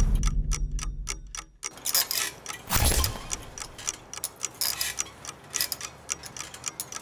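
Clock-like ticking sound effect, quick and even at about four ticks a second. A low rumble fades out over the first second and a half, and a whoosh swells about three seconds in.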